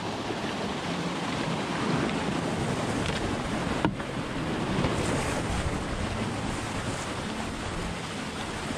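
Water rushing down a concrete canoe chute at a small river weir as an inflatable canoe slides through it. There is a single sharp knock about four seconds in.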